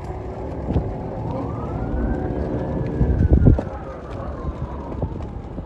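Emergency siren wailing, one slow rise and fall and then rising again near the end, over a steady low rumble. A few low thumps come about three and a half seconds in, the loudest moment.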